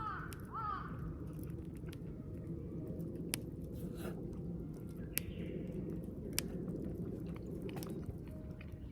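Close-up chewing of charcoal-grilled chicken thigh yakitori, with sharp clicks scattered through it. A crow caws twice at the very start.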